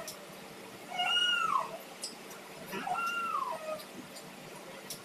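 A cat meowing twice, each meow rising and then falling in pitch.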